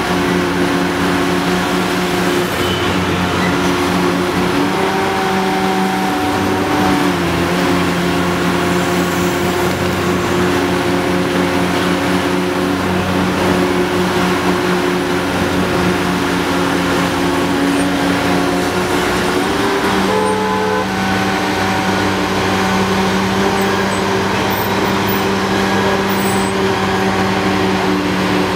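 Hitachi ZX800 excavator's large diesel engine running steadily at working revs, its note shifting briefly about five seconds in and again about twenty seconds in, with city traffic passing close by.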